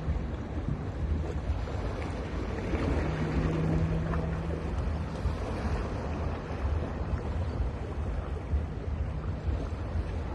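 Sea waves washing onto a beach, with wind rumbling on the microphone; a wave swells up a few seconds in. A faint low hum comes and goes.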